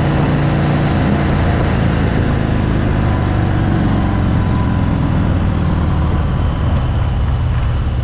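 2018 Harley-Davidson Fat Bob's V-twin engine running steadily while under way, with a steady rush of wind noise on the handlebar-mounted camera's microphone.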